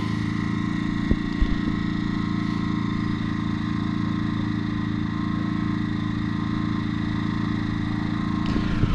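Portable petrol generator running steadily in energy-saving mode, its engine held at a lowered speed, heard from about 20 metres away.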